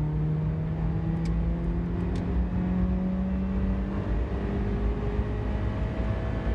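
1987 Toyota Corolla FX16's 1.6-litre twin-cam four-cylinder engine pulling hard in third gear, its exhaust note rising steadily in pitch as it revs toward the top of its range. The exhaust is the stock FX16 system with a MagnaFlow catalytic converter and a cheap Totalflow muffler.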